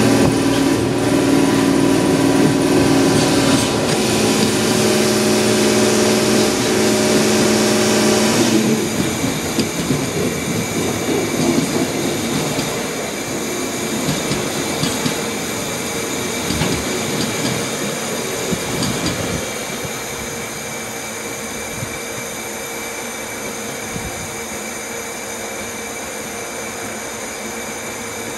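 Container freight train's Koki flatcars rolling past close by, wheels rumbling and clattering on the rails, with a steady hum through the first eight seconds or so. The sound drops after about eight seconds and fades further near twenty seconds in as the last wagons pull away.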